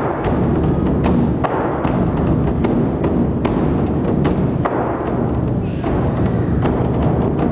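Large drums struck in a live percussion show: sharp, irregular strikes roughly every half second to a second over a continuous low rumble.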